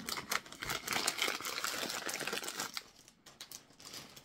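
Snack packaging crinkling as it is handled: a dense crackle for the first couple of seconds, then quieter and sparser.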